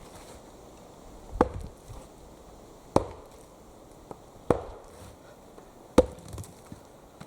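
Axe chopping wood: four sharp blows about a second and a half apart, each with a short ringing knock.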